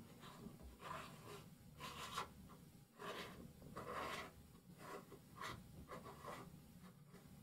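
A thin metal pick scraping around a rubber lip seal as it is tucked into an aluminium transmission clutch drum bore: a series of short, faint scratching strokes, roughly one or two a second.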